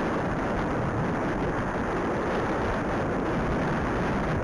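Wind buffeting the microphone: a steady, loud rushing noise with no breaks.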